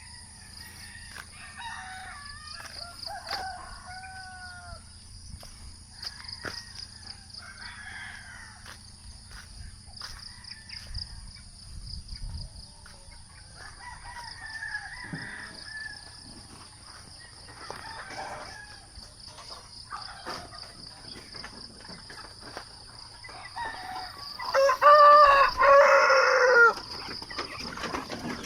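Roosters crowing, several faint calls through the first twenty-odd seconds, then one crowing loudly near the end.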